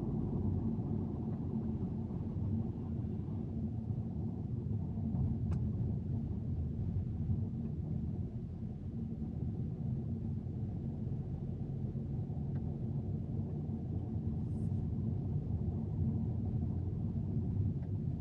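Steady low rumble of a car's engine and tyres heard from inside the cabin while driving at city speed, with a few faint ticks and a brief high squeak about three-quarters of the way through.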